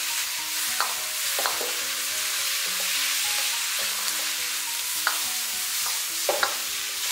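Pork belly and green chilies sizzling in a hot iron wok over a high flame as a metal ladle stir-fries and tosses them. The ladle scrapes and knocks against the wok a few times over a steady sizzle.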